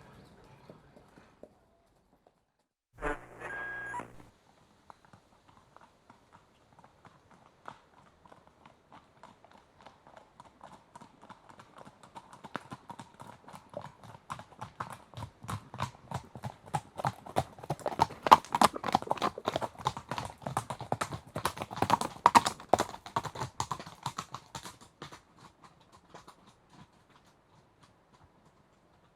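Hoofbeats of a trotting horse, a quick run of sharp clip-clops that grows from faint to loud around the middle and fades away again, as the horse passes by. A short pitched sound is heard about three seconds in.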